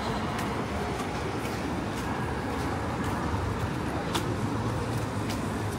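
City street traffic: a steady rumble of passing cars, with a few light clicks scattered through it.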